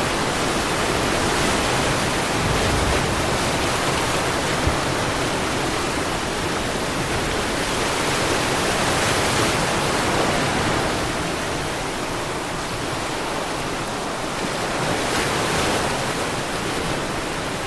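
Sea surf: a steady rushing of waves that swells and eases slowly every few seconds.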